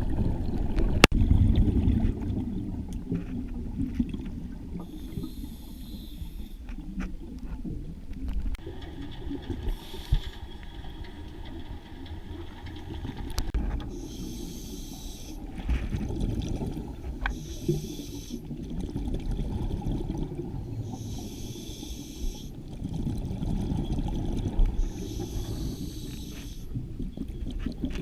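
Underwater sound of a scuba diver breathing through a regulator, with bursts of hissing exhaled bubbles every few seconds over a steady low rumble of water.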